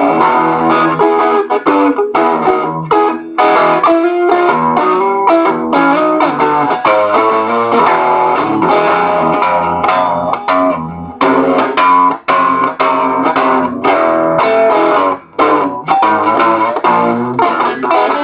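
Guitar playing an out-of-tune blues boogie, a continuous rhythmic riff with a few short breaks.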